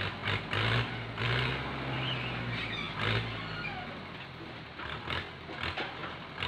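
Farm tractor engine running under hydraulic load as its rear-mounted crane grabber lifts a clawful of oil palm fruit bunches up over a trailer, the revs rising and easing, with a few short knocks.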